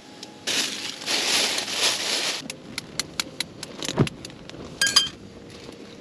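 Clear plastic bag crinkling for about two seconds, then a run of small sharp clicks and one firmer knock as the shell of a hard-boiled egg is tapped and cracked.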